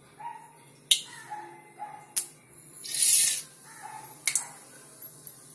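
Mustard seeds dropped into hot oil in a steel kadai: a brief hissing sizzle about three seconds in, with a few sharp clicks before and after it.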